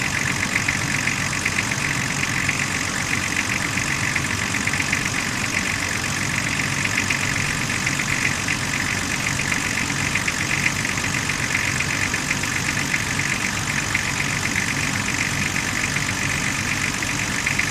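Nissan RD28ETi 2.8-litre straight-six turbodiesel idling steadily, with a fast, sharp metallic ticking clatter over the low engine hum.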